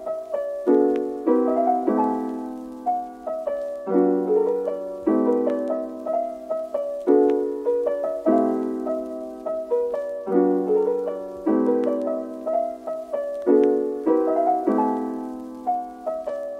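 Background piano music: soft chords struck in an even, repeating pattern with a simple melody on top.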